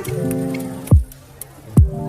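Background music: sustained synth chords over a beat with light high ticks and two deep, falling kick-drum booms.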